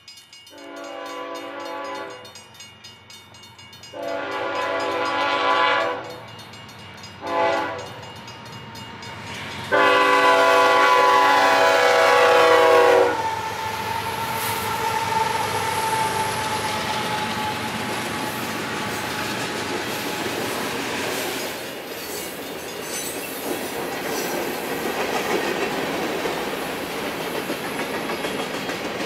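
Locomotive multi-chime air horn sounding the grade-crossing signal: two long blasts, a short one and a final long one. About thirteen seconds in, the horn stops and gives way to the steady noise of the train's wheels on the rails as it runs over the crossing.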